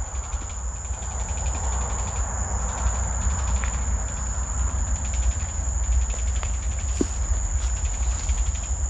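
A steady high-pitched insect-like chorus, rapidly pulsing, over a low rumble. This may be the unexplained noise heard from all around in the mangroves, which local reports liken to a marble rolled around in a metal bowl.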